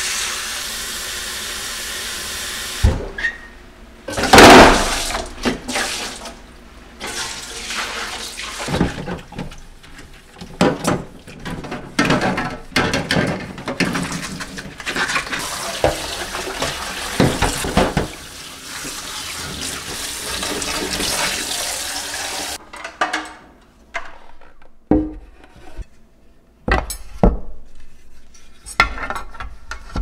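Tap water running into a stainless steel kitchen sink. Then come irregular knocks and splashes as clear plastic refrigerator bins and a steel bowl are washed under the tap, the loudest about four and a half seconds in. After about 22 seconds the water stops, leaving a few separate plastic knocks.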